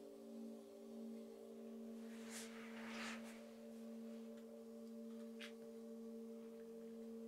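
Several metal singing bowls ringing together, long overlapping tones with a slow wavering beat in the lowest. A brief soft rustle near the middle and a light tick a little later, as the bowls are handled.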